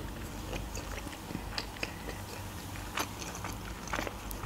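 Close-miked chewing of sticky, sauce-glazed chicken pieces in sweet-and-sour sauce, with soft wet mouth clicks and smacks every so often, the sharpest about three seconds in.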